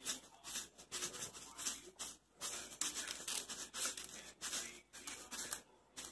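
A quick, irregular run of short scratchy rustles and taps from salt being shaken and handled to season a rack of raw pork ribs, with two brief pauses.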